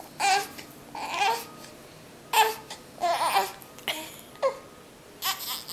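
A baby's short babbling and fussing sounds, about one a second, some cut short and sudden, from a baby who has the hiccups.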